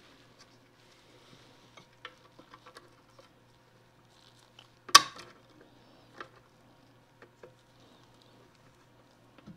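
Snips cutting off the excess leg of a steel cotter pin: one sharp metallic snap about halfway through, with light clicks and taps of the tool and pin around it.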